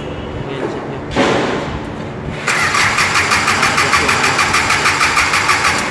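A Toyota gasoline engine turned over on its starter motor: a brief bump about a second in, then about three seconds of steady cranking, pulsing about six times a second. It does not fire, as the distributor rotor is out while the contact points are being set.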